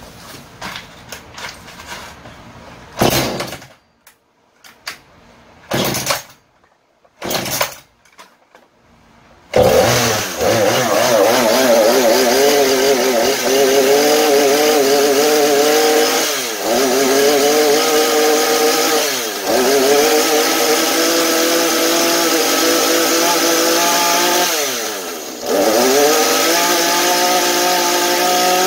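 Husqvarna 435 two-stroke chainsaw being started: a few short pulls of the starter cord, then the engine catches about ten seconds in and keeps running, its pitch dipping briefly and recovering three times. It runs on fresh fuel after old, wrong fuel had made it stall, a sign that the engine itself is sound.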